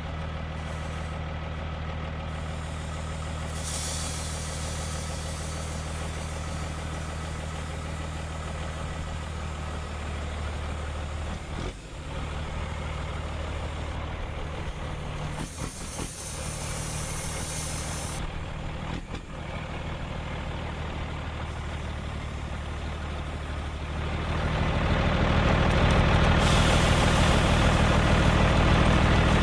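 Steady engine idling hum, like a truck or tractor engine, with bursts of hissing a few seconds in and again midway. Near the end it grows louder, with hissing throughout.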